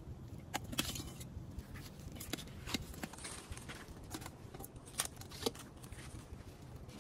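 A metal ladle clinking and scraping against a stainless-steel bowl as fish pieces are scooped, a series of irregular sharp clinks over a low steady background noise.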